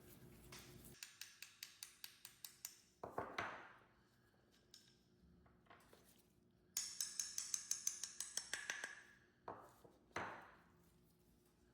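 Small metal parts and tools clinking: two quick runs of light metallic clicks, about six a second, each followed by a few sharper clanks that ring briefly.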